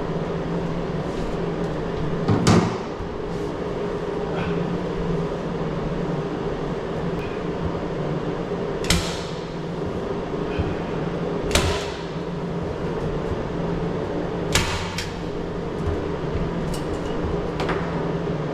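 Four sharp knocks a few seconds apart, with a fainter one near the end, from work on the camper's wall panels, over a steady hum.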